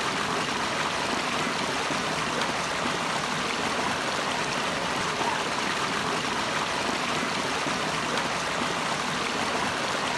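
Running water, a steady even rush that holds without change.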